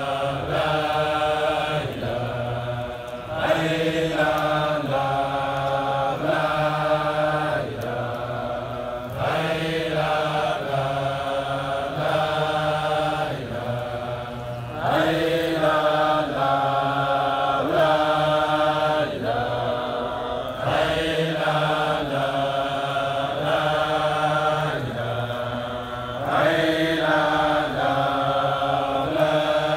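A large group of men chanting a Sufi dhikr in unison, in long held notes that step up and down in pitch, the phrase repeating every few seconds.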